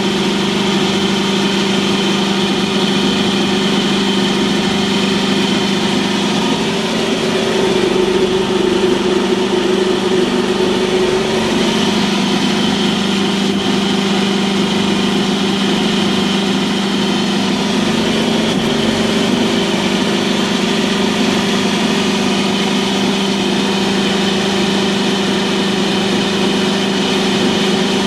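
Hydraulic test stand running steadily, its pump and drive motor giving a constant hum while a tractor's hydraulic valve block is tested on it. The tone shifts briefly a few times, as with a change in load.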